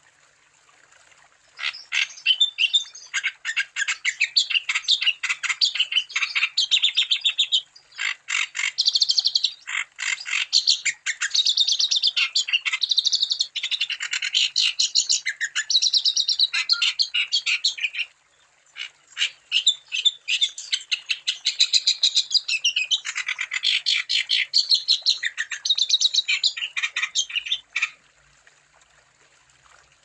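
Wambi songbird singing vigorously (gacor): a rapid, chattering run of high chirps and trills in three long bursts, breaking off briefly about 8 seconds in and again about 18 seconds in.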